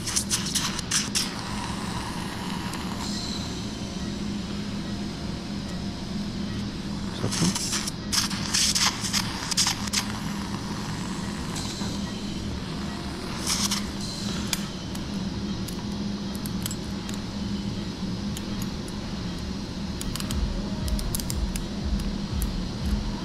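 Steel surgical instruments clicking and clinking as point-to-point reduction forceps are handled and locked on bone, in short clusters of sharp clicks a few seconds apart, over a steady low hum.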